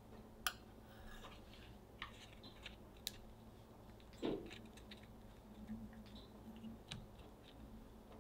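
Scattered faint clicks and light taps of a wooden chopstick and fingertips against a baking sheet as thin, still-soft baked cookies are rolled around the chopstick, with one softer thump about four seconds in.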